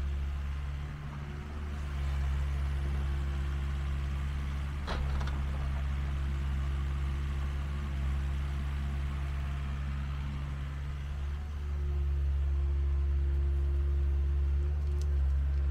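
Compact excavator's diesel engine running steadily, its note dipping briefly about a second in and again near eleven seconds. A single sharp knock comes about five seconds in.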